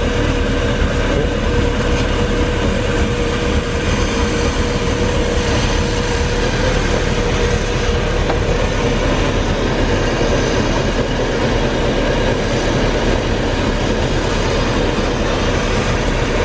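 Boat's MerCruiser engine idling steadily while fogging oil is sprayed into its intake during winterizing, with antifreeze circulating through it.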